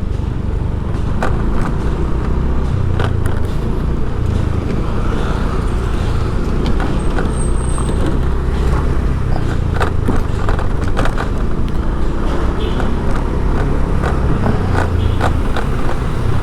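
Street traffic: vehicle engines running with a steady heavy low rumble, and scattered short clicks and knocks over it.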